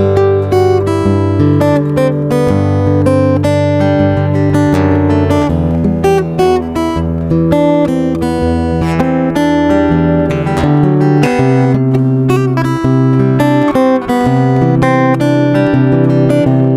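Background music led by plucked acoustic guitar, with dense strummed and picked notes over a steady bass line.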